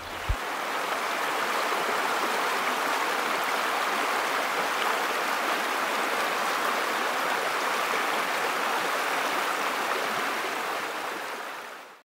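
Creek water rushing over shallow whitewater rapids: a steady rush that fades in at the start and fades out at the end.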